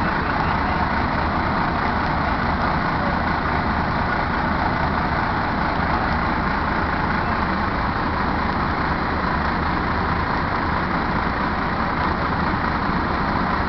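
Fire trucks' diesel engines idling close by: a steady, unchanging low rumble.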